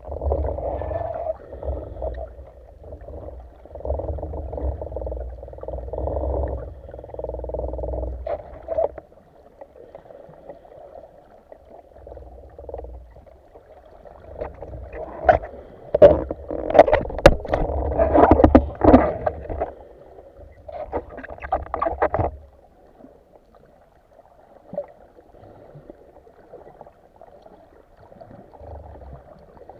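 Underwater sound picked up by a diving camera's housing: surges of water rushing past as the spearfisher swims, then a run of sharp clicks and knocks in the middle, settling into a quieter wash of water near the end.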